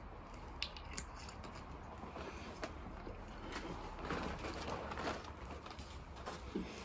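Quiet background with scattered small clicks and knocks, and a faint cooing bird.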